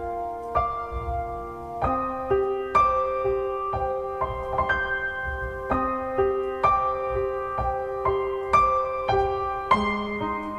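Background music: a slow, gentle piano piece with sustained chords and a simple melody.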